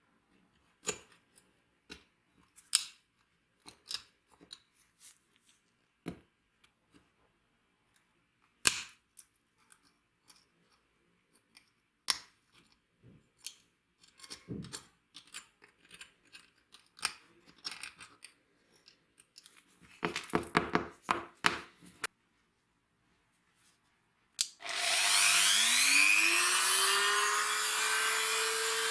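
Scattered clicks and knocks of hand work, with a quick run of rattling taps about two-thirds of the way through. Near the end an electric power tool spins up with a rising whine and then runs steadily.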